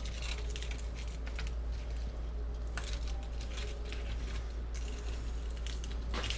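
Grilled lobster tails being handled on a paper plate, the meat pulled from the shells: faint, scattered clicks and crackles of shell and fingers, over a steady low hum.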